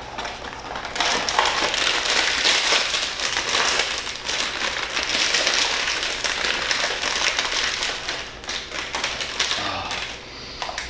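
A blind box and its wrapping being torn open by hand: dense crinkling and crackling with small taps, from about a second in until near the end.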